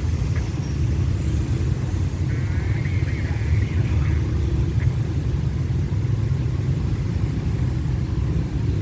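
Diesel-hauled passenger train rolling past with a steady low rumble. A brief high squeal comes between about two and four seconds in.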